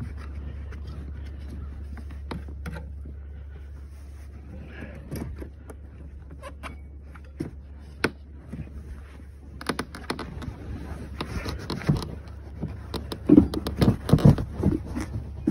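Scraping, rubbing and knocking of hands working parts in a cramped space, sparse at first and busier with sharp knocks from about ten seconds in, over a steady low hum.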